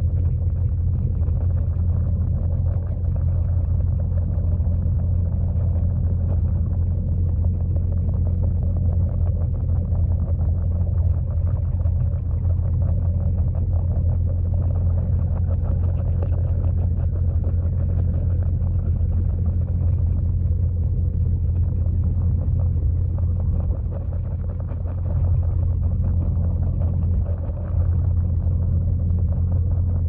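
Waterfall pouring into a pond, heard underwater through a GoPro's waterproof housing: a steady, muffled low rumble that dips briefly twice near the end.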